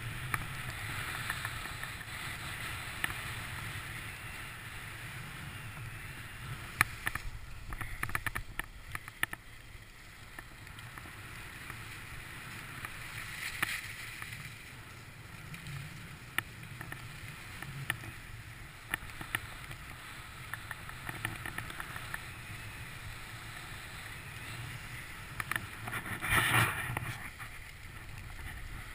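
Skis sliding over packed snow on a downhill run: a steady rushing hiss, with clusters of clicks and scrapes from the edges about a quarter of the way in and a louder scraping burst near the end.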